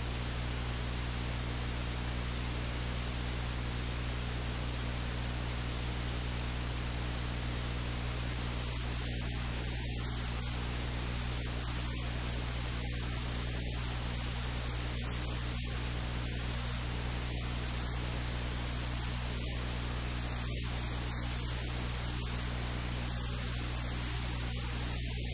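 Steady hiss with a low electrical hum underneath: recording noise, with no other sound standing out.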